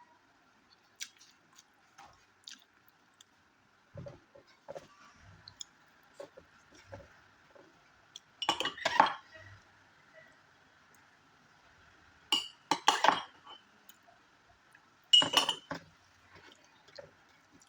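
Tableware clinking against dishes during a meal, in three short loud clusters a few seconds apart, with quieter eating sounds between them.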